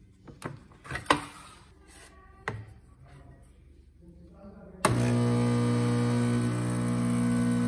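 A few light knocks and a glass clink as a glass cup is set down on the espresso machine's drip tray, then about five seconds in the De'Longhi espresso machine's pump switches on with a sudden, loud, steady hum, starting the espresso shot.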